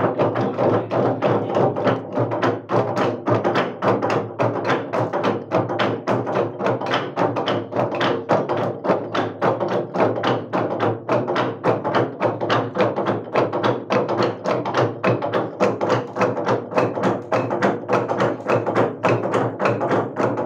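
Naga log drum, a long hollowed tree trunk, beaten by many men at once with heavy wooden beaters held upright: a fast, unbroken clatter of wooden knocks, several strikes a second.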